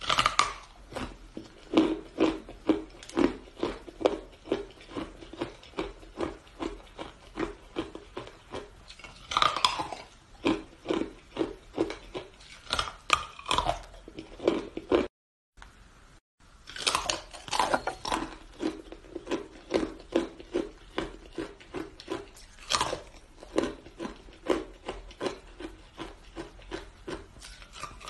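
Sticks of hard ice being bitten off and chewed: a steady run of sharp crunches, a couple or more a second, broken by a short drop to silence about halfway through.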